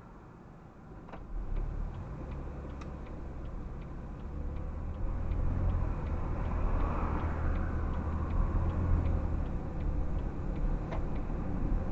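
Car interior: engine and road rumble build as the car pulls away from a stop. A turn-signal indicator clicks about three times a second over it and stops near the end.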